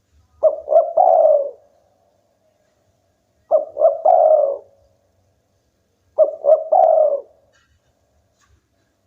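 Spotted dove cooing: three song phrases about three seconds apart, each two short notes followed by a longer, drawn-out coo.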